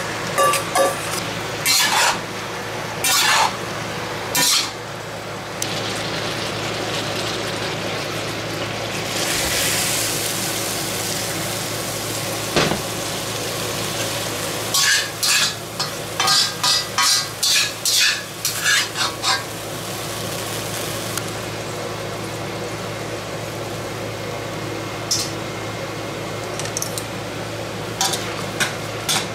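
Food sizzling in a hot wok while a metal spatula scrapes and clanks against the pan. A run of quick clinks of metal utensils on the pan comes about halfway through.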